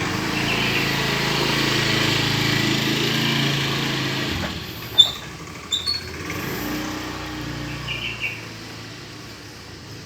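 A small engine running steadily, then fading away about four and a half seconds in, followed by two sharp clicks.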